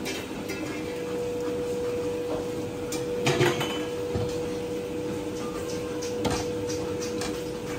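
Clinks and knocks of ceramic bowls, utensils and a pot lid as a cook works at a noodle-shop stove, over a steady hum. The loudest clatter comes about three seconds in, with a sharp knock near six seconds.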